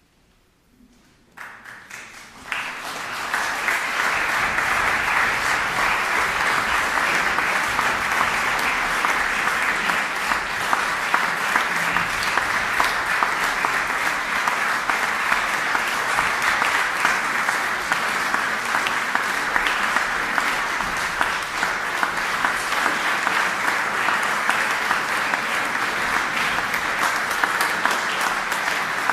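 Audience applause. It breaks out from near silence about a second in, swells to full strength within a couple of seconds, and then goes on as steady, dense clapping.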